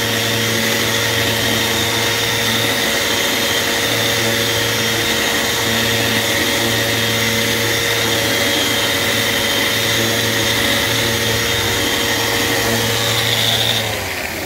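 Festool Rotex RO 150 random-orbit sander running steadily while sanding an acrylic block. Near the end it is switched off and its tone drops away as it spins down, leaving a steady hiss.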